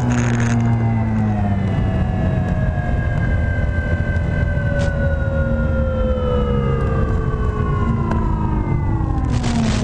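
Radio-controlled airplane's motor and propeller whining, the pitch sliding slowly and steadily down as it flies low. Near the end a sudden loud rush of noise breaks in as the plane strikes the ground.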